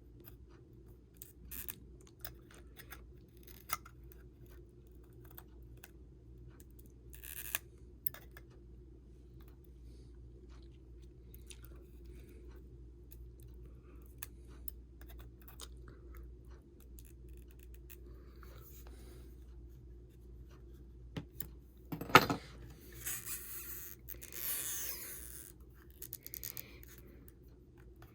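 Small clicks and light scraping of repair tools working at the adhesive under an iPhone 6 battery, mostly faint, with one sharper click about three-quarters of the way through followed by a few seconds of scraping.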